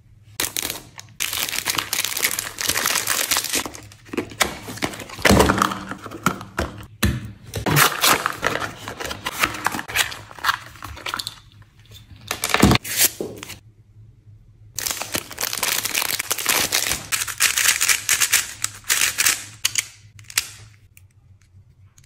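Packaging being cut, torn and crinkled open: plastic wrap and a cardboard box and paper insert rustling and crackling, with many small clicks and knocks. It stops briefly about two-thirds of the way through, then goes on and dies away near the end.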